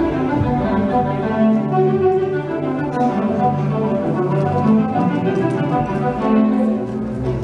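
Orchestral music, with bowed strings carrying a melody.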